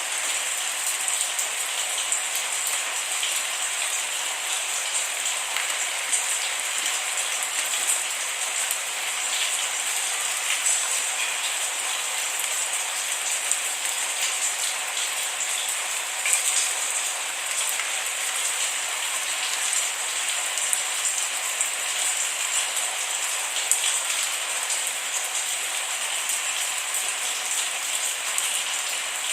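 Steady rain falling, with a dense patter of small drop ticks and no thunder.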